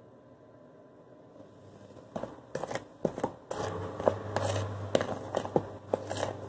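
A utensil stirring dry flour, sugar and salt in a plastic mixing bowl: scraping with sharp clicks and taps against the bowl, starting about two seconds in and growing steadier and busier partway through.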